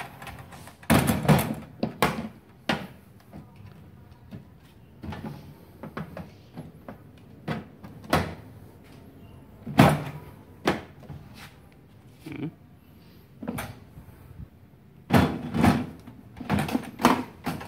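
Sections of a stacking trolley toolbox being lifted, set on top of one another and fitted back together: scattered hard plastic knocks and clacks, with a quick run of them near the end.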